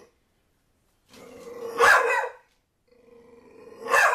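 Pit bull puppy growling and barking, two bouts about two seconds apart, each rising to a sharp loud bark. This is nervous barking at a ball it is scared of.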